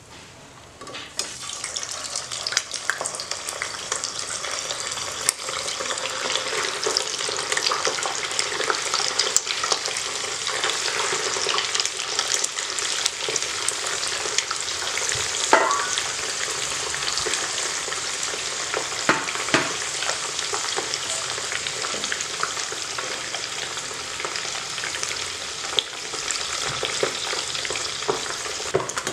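Paneer cubes deep-frying in hot oil in a kadai: a steady sizzle with crackling, beginning about a second in as the pieces go into the oil.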